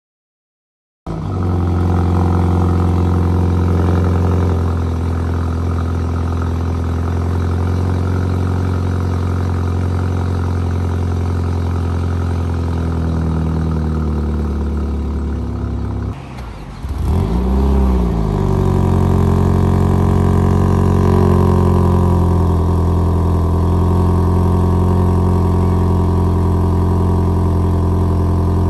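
BMW M135i (F40) 2.0-litre turbocharged four-cylinder running at a cold-start fast idle through the stock exhaust, starting about a second in. After a break about 16 s in, it plays through a Remus sport exhaust: the revs flare up and drop back, then hold a steady fast idle.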